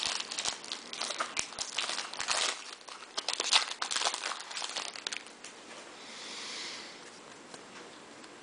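Foil wrapper of a Bowman Jumbo baseball card pack crinkling and crackling as it is handled and torn open, for about five seconds. This is followed by a brief soft swish.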